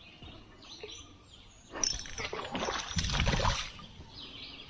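Handling noise and water splashing in a small fishing boat, lasting about two seconds from near the middle, with faint bird chirps behind it.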